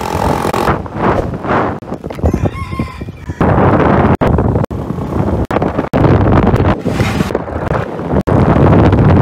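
A rooster crowing, then loud wind and road noise of a motorcycle underway, broken off by several abrupt cuts between clips.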